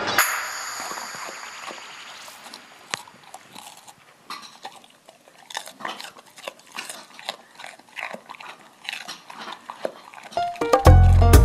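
A golden retriever chewing raw green bell pepper: irregular crunches and jaw clicks. Loud music with a strong beat starts near the end.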